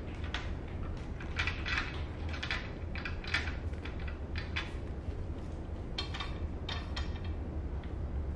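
Wooden activity-cube toy clacking and rattling in irregular bunches as a baby's hand knocks its beads and pieces, with a steady low hum underneath.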